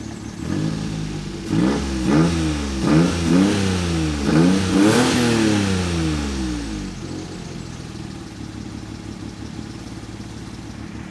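Turbocharged Perodua Viva engine blipped through a series of about six quick free revs, then settling back to a steady idle.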